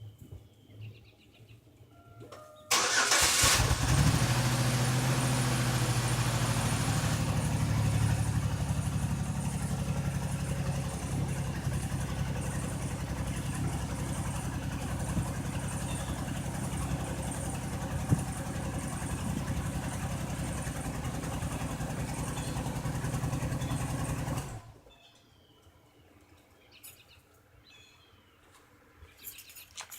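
A Buick car engine starting about three seconds in, running at a fast idle that settles a little lower, then shut off abruptly about 25 seconds in. It runs with a bad misfire; its intake gaskets have failed and coolant has mixed into the oil.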